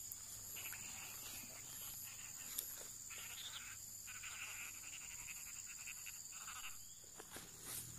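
Faint outdoor ambience with frogs and insects calling: stretches of pulsed trilling come and go, and a high chirp repeats evenly, between one and two times a second.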